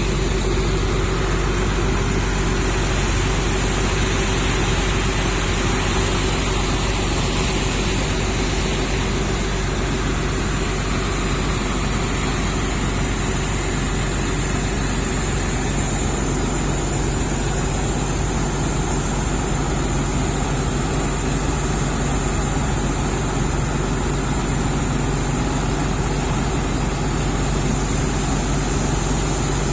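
Hydraulic excavator's diesel engine running steadily at close range, an even, unchanging drone.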